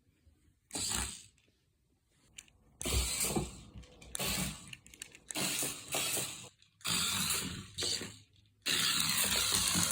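Remote-controlled mouse cat toy's small geared drive motor running in about six short bursts of a second or so each, stopping and starting as it is driven.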